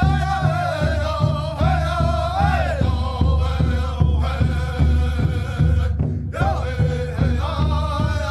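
A song with a solo voice singing a wavering, ornamented melody over a steady beat, in a Latin or flamenco style; the music drops out briefly about six seconds in.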